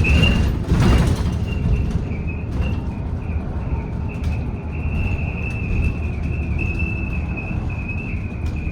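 Cabin noise on board a BYD D8UR DD electric double-decker bus on the move: a steady low road rumble with a persistent high, wavering rattle-like whine that is annoying. Two loud jolts come in the first second.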